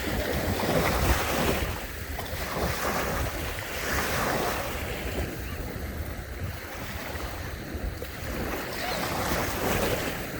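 Sea waves breaking and washing in, swelling and easing every few seconds, with wind rumbling on the microphone.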